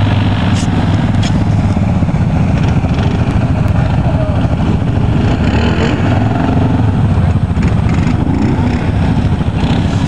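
ATV engines running close by, a steady low engine drone with faint voices underneath.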